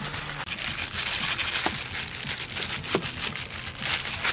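Clear plastic disposable gloves crinkling and shredded raw cassava rustling as gloved hands toss and press the strands in a pan, a run of irregular soft crackles.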